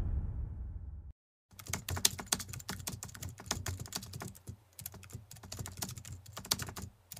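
The tail of music fades out, then after a brief silence comes a run of rapid, irregular light clicks.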